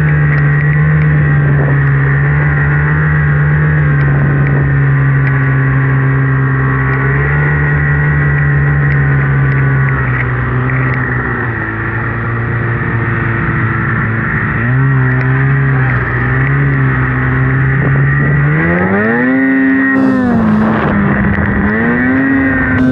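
Polaris RMK Khaos two-stroke snowmobile engine running under load through deep powder, held at a steady pitch for most of the time. Near the end the revs climb sharply, dip briefly and climb again.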